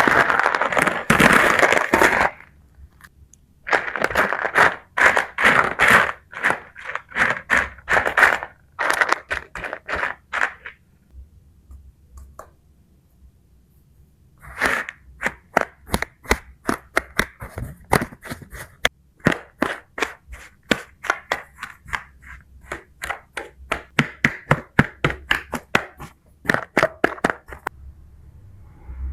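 Kinetic sand being pressed and broken up, a dense run of crisp crackling snaps that comes in bursts, with a pause of a few seconds about a third of the way in.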